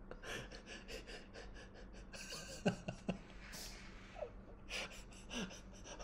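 A man's quiet, stifled laughter: a quick run of short breathy gasps with a few small voiced catches.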